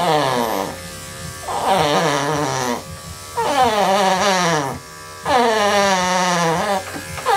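A dog crying out in a run of about five long calls, each sliding down in pitch, while electric grooming clippers buzz faintly underneath.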